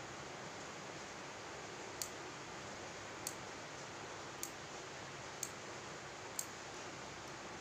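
Nail clippers snipping through fingernails: five sharp clicks about a second apart, over a steady hiss.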